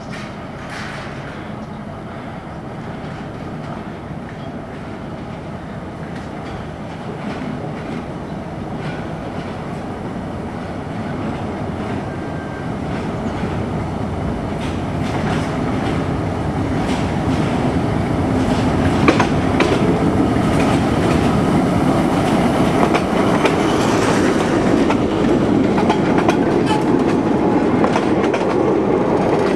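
A TU2 narrow-gauge diesel locomotive and its coaches come on, growing steadily louder. The diesel engine runs and the wheels click over the rail joints, with the clicks coming more often and louder in the second half.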